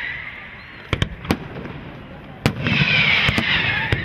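Fireworks display: a few sharp bangs about a second in and another at about two and a half seconds, followed by a loud hissing crackle that swells and slides slightly down in pitch.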